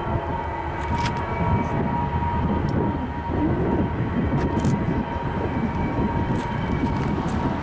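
Wind buffeting the microphone in gusts, with a steady faint distant hum underneath.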